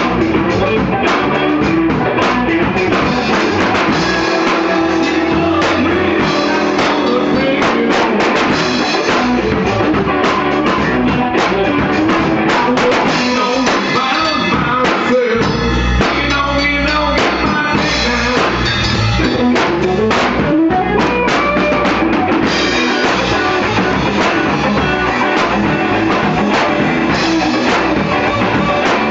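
A rock band jamming loud: a full drum kit with cymbals and bass drum driving a steady beat under amplified electric guitar.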